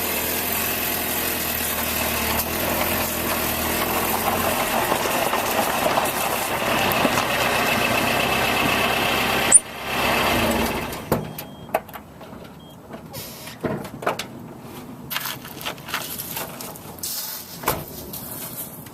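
Nissan pickup truck running, heard through a camera mounted underneath it. About nine and a half seconds in, a sharp click, and the sound drops away to quieter scattered clicks and knocks.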